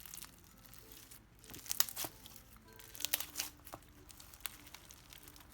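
Freshly activated clear slime being handled, giving off scattered sticky clicks and small pops at irregular intervals, over faint background music.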